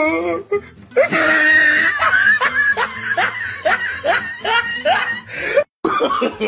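A person laughing hard: a loud shrieking outburst about a second in, then a fast run of short rising 'ha' bursts, about three a second, broken by a brief cut-out near the end.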